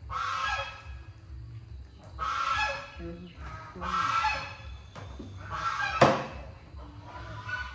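Three loud harsh animal calls about a second and a half apart, each falling in pitch. About six seconds in comes a single sharp knock.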